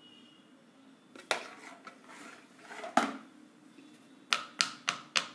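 Spoon scraping and knocking against a plastic idli mould as rava batter is spooned in, with a sharp knock about three seconds in. Near the end comes a quick run of light taps, about three a second, as the filled mould is tapped on the stone counter to let trapped air out of the batter.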